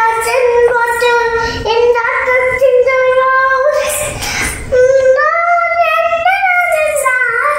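A young girl singing solo, holding long notes, with the melody stepping up to higher notes about five seconds in.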